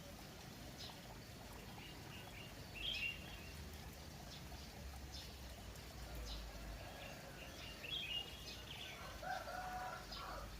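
Small birds chirping in short bursts, with a chicken calling for about a second near the end, over a steady background hiss.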